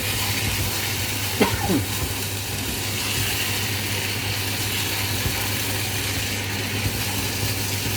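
Masala and beef frying in a pan: a steady sizzling hiss over a constant low hum, with one short gliding squeak about a second and a half in.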